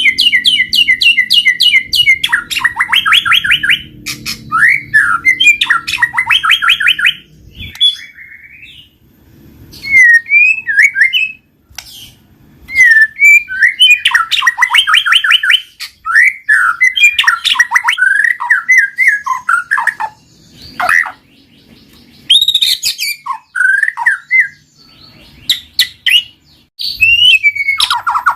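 White-rumped shama (murai batu) singing a loud, varied song: fast runs of repeated chipping notes and rapid trills, broken up by sweeping whistled phrases and short pauses.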